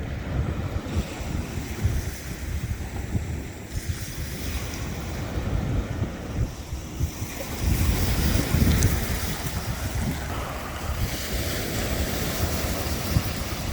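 Wind buffeting the microphone in an uneven rumble, gusting stronger about eight seconds in.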